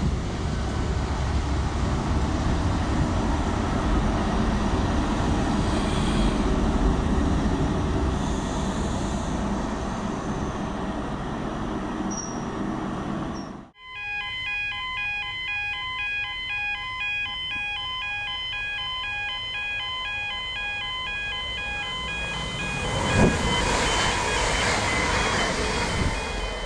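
CrossCountry HST with its Class 43 diesel power car running as it pulls out along the platform, a steady loud engine and wheel noise. After an abrupt cut, a Northern Class 333 electric multiple unit approaches with its traction equipment giving a chord of steady tones that step up and down in pitch. The tones grow into a louder rush of wheel and motor noise as it passes close, about three-quarters of the way through.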